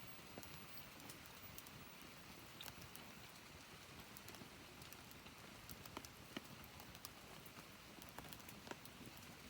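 Wood campfire burning quietly, with a soft hiss and scattered small crackles and pops.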